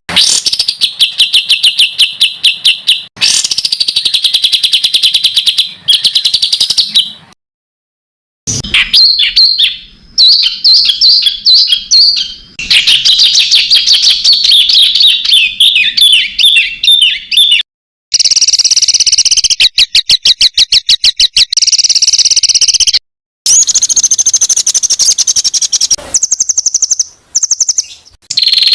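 Songbird recordings spliced together: rapid runs of repeated sharp, high chirping notes, the fast 'tembakan' song material used as masteran for competition birds, broken by abrupt cuts about 8 s in, near 18 s and near 23 s.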